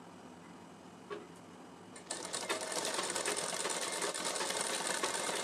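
Sewing machine starting up about two seconds in and running steadily at speed, stitching gota lace trim onto cotton fabric.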